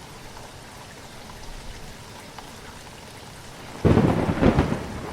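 Steady rain falling, then a sudden loud clap of thunder nearly four seconds in that rumbles on for about a second.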